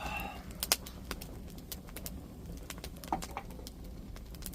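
Campfire burning, the wood crackling with irregular sharp pops, two louder ones about a second in and about three seconds in. A short call or voice is heard at the very start.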